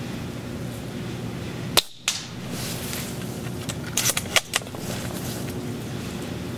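Spring-powered AGM MK96 airsoft bolt-action sniper rifle firing once with a sharp snap about two seconds in. A quick run of four or five clicks follows around four seconds in as the bolt is worked to cock it for the next shot.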